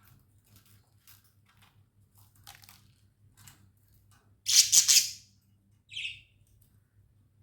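Budgerigars chirping: soft scattered chirps and clicks, then a loud burst of chatter about halfway through and a shorter call about a second later.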